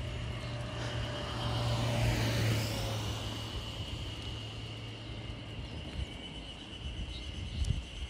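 A small kei truck driving past on the road: its engine and tyre noise grow to a peak about two seconds in, then fade as it moves away.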